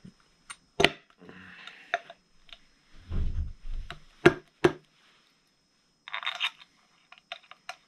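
Scattered metal clicks and knocks of bolts and a timing cover being handled, then a short hiss of aerosol spray through a straw about six seconds in, followed by a quick run of small clicks near the end.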